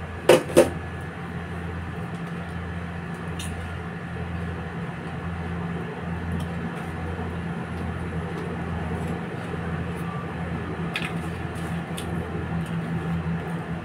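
A steady low electrical hum under even room noise. Two sharp knocks about a third of a second apart come right at the start, and a few faint clicks follow later.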